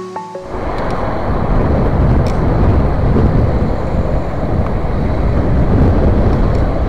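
Wind buffeting the microphone of a camera riding on a moving bicycle: a loud, steady rumbling rush. Electronic background music cuts off about half a second in.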